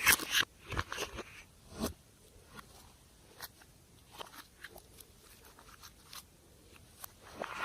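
Slime being squished by hand, making sharp crackling pops and clicks. They come thickly for the first two seconds, thin out to scattered faint clicks, and pick up again near the end.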